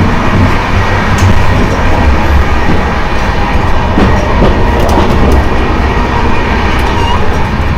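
Passenger train running, heard from inside the carriage: a steady loud rumble and rattle with occasional sharp clicks.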